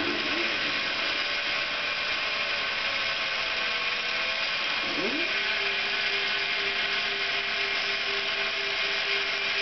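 Homemade R3 CNC router cutting MDF board: the spindle runs with a steady high-pitched whine as its bit cuts. Beneath it, the motors driving the axes whine in pitch that glides up and down as the head speeds up and slows down, then holds one steady note from about five seconds in.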